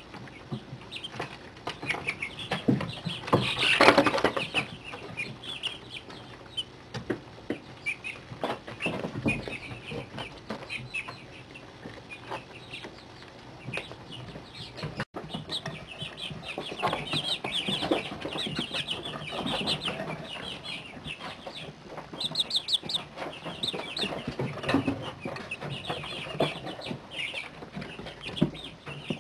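A brood of 30-day-old chicks peeping and chirping in short high calls, some in quick runs, with a brief louder scuffling noise about four seconds in.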